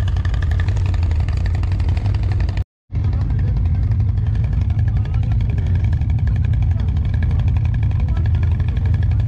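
ATV engine running steadily while riding, with the sound cutting out completely for a moment about a quarter of the way in.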